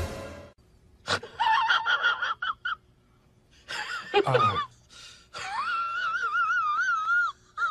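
Domestic cat vocalising in three bouts of drawn-out, wavering meows, the last and longest lasting about two seconds.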